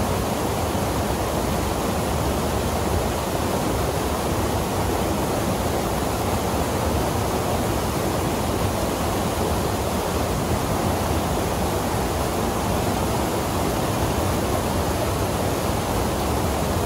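Whitewater rapids pouring over boulders into a rock pool, a steady, unbroken rush of water.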